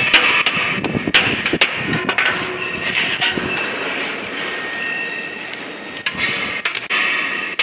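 Sharp metallic knocks and clanks from a wound steel transformer core being handled at the cutting machine: several in the first two seconds and more from about six seconds in, over steady workshop noise.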